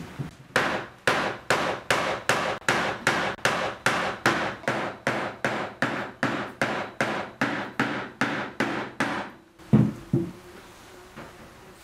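End of a wooden rolling pin pounding folded cloth on a board, beating flower petals to press their colour into the fabric: about twenty even knocks at two to three a second, then two duller thumps near the end.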